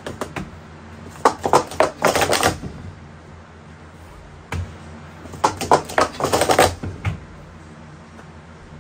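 Wooden sport stacking cups clacking together as they are stacked up and down at speed, in two quick runs of rapid clacks a few seconds apart. The cups are new and still being broken in.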